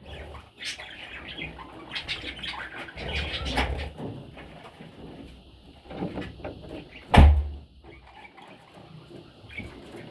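Baby budgerigars chirping and squeaking among scuffling movement, with a loud thump about seven seconds in.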